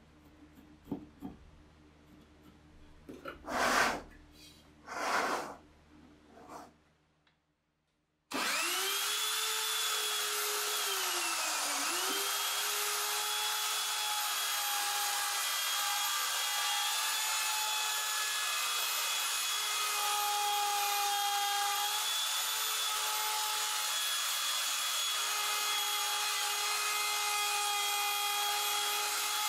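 A few short scratchy pencil strokes on plywood, then an electric router runs at full speed with a steady high whine as it cuts a slot in a plywood disc, its pitch sagging once briefly a few seconds after it starts.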